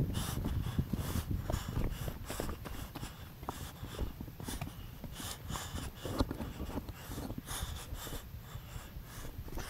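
Wind rumbling on a head-mounted camera's microphone, with irregular scrapes and knocks of boots and hands on rock and the climber's breathing while scrambling along a rocky ridge.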